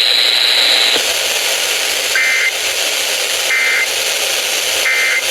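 Weather radio broadcast hiss with three short, identical bursts of two-tone digital warbling about a second and a half apart: the EAS SAME end-of-message data bursts that close a warning. A thin high steady tone stops about a second in.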